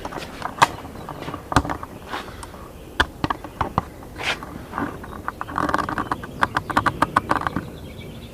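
Work sounds of hands handling parts and tidying in a car interior: irregular knocks, taps and scrapes, with a quick run of clicks from about five and a half to seven and a half seconds in.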